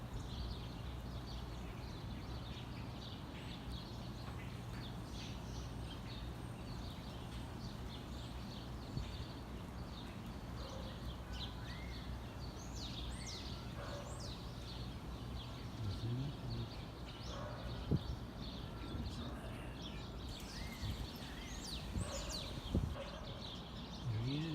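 Small songbirds giving many short, high chirps and call notes, scattered and more frequent in the second half, over a steady low background hum.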